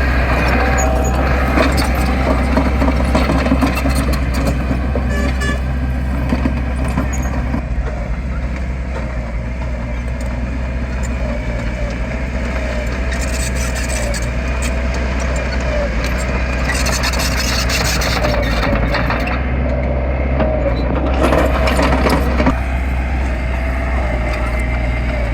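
Diesel engine of heavy earthmoving machinery running steadily under work, a constant low drone with a faint wavering whine above it.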